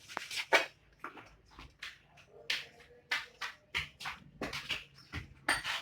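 Irregular metallic clicks and taps of hand tools working on a Honda CG 125's valve tappets as the valve clearances are set, with the engine not running.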